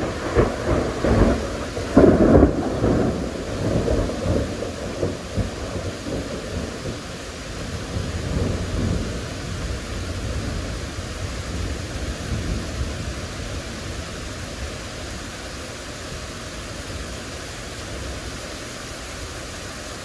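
A thunderclap crackling loudly in the first few seconds, loudest about two seconds in, then rolling off into a rumble that fades away. Heavy rain hisses steadily underneath.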